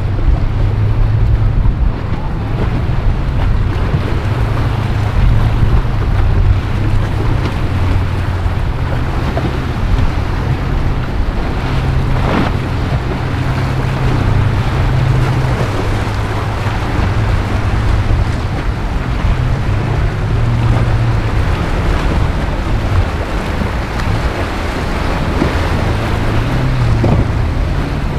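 Outboard motors of center-console boats running through choppy inlet water, mixed with waves splashing and wind buffeting the microphone as a steady low rumble.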